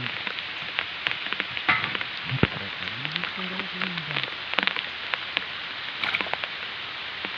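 Water splashing and trickling, a steady hiss broken by many sharp little clicks and splashes. A brief voice is heard about three seconds in.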